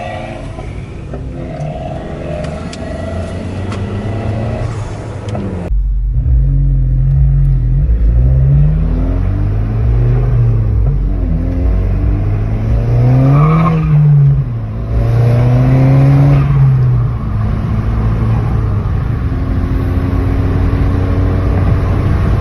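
VW Mk6 GTI's turbocharged four-cylinder engine, newly fitted with a K04 turbo, running steadily, then louder and revved up and down several times, highest about halfway through, before settling to a steady run.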